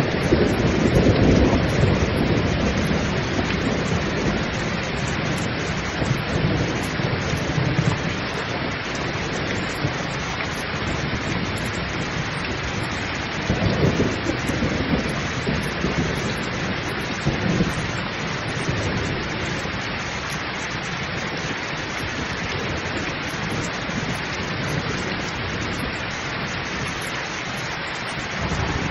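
Heavy rain pouring steadily, with rolls of thunder: a rumble that fades over the first few seconds, and shorter rumbles around the middle.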